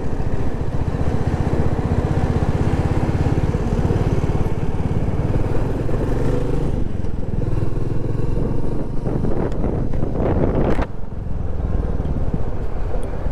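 Motorcycle engine running steadily while being ridden along a road, with wind noise on the rider's microphone. The level dips briefly about eleven seconds in.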